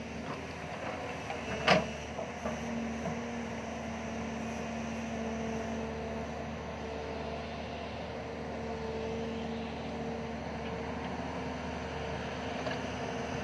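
JCB tracked excavator's diesel engine running steadily with a droning tone as the boom and bucket work the dirt. There is one sharp knock about two seconds in.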